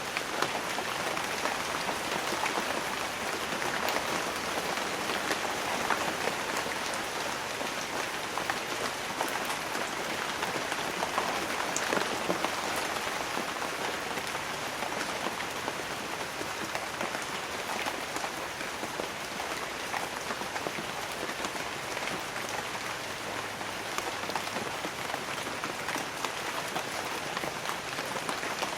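Light rain falling steadily on banana leaves: an even hiss dotted with countless individual drops ticking.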